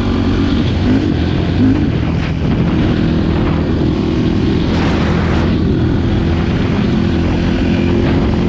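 Yamaha YFZ450 sport quad's single-cylinder four-stroke engine running at a fairly steady speed while riding, with a brief rush of noise about five seconds in.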